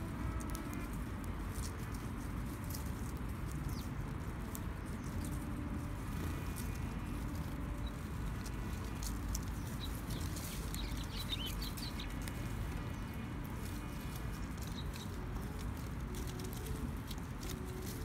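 Eurasian tree sparrows pecking grains off a wooden bench: many light, quick clicks of beaks on the planks. A few short high chirps come about midway, over a steady low rumble.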